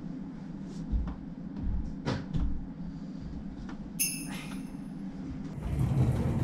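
Wooden sliding doors opening with a few low thumps, and a short high ringing tone about four seconds in. Louder background music comes in near the end.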